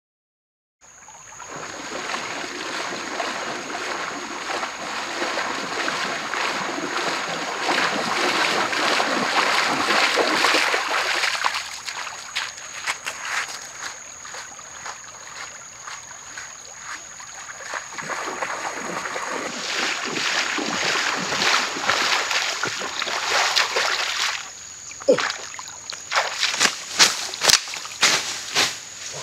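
A person wading fast through a shallow stream, water splashing with each stride in two louder spells, then a run of sharp separate splashes near the end. A thin steady high-pitched tone sounds behind it.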